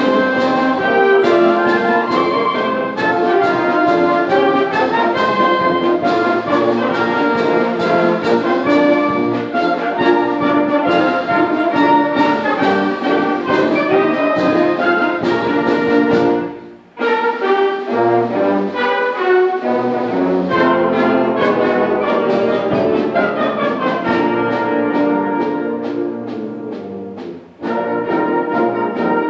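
A symphonic band plays a march, with brass leading over the ensemble. It breaks off sharply for a moment about halfway through, then plays a softer passage before the full band comes back in near the end.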